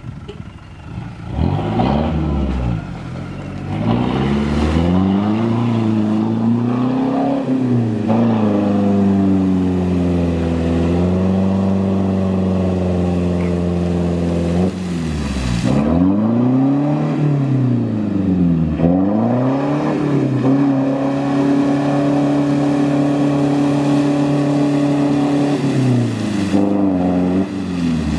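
Mitsubishi MK Triton 4x4 ute engine revving hard as it churns through a muddy water hole with its wheels spinning, throwing up mud and water. The revs rise and fall again and again, with long stretches held steady at high revs.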